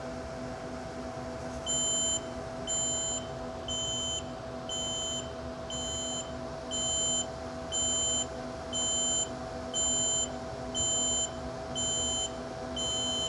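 GQF 1502 incubator in quick turn mode: a steady hum, and from about two seconds in a high electronic beep repeating about every three-quarters of a second while the egg-turner trays tilt, the turner working as it should.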